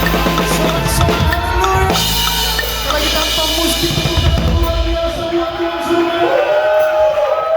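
Drum kit played at a fast tempo over a backing track, with kick drum, snare and cymbals. About five seconds in the drumming thins out and held chord notes ring on as the song ends.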